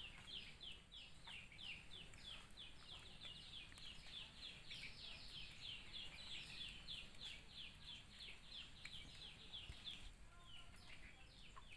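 Bird chirping: a faint, fast run of short high peeps, each falling in pitch, about four or five a second, with a short break near the end.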